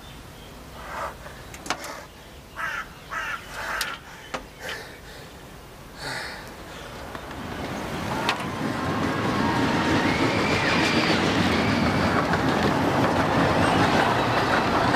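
A few small clicks and knocks, then a loud vehicle-like noise that builds up from about seven seconds in and holds steady, with a faint whine gliding up and down in it.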